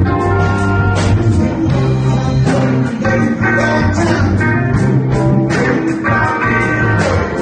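Live blues-rock band playing instrumentally: two electric guitars, electric bass and drum kit. Guitar notes ring over a steady bass line and regular drum beats.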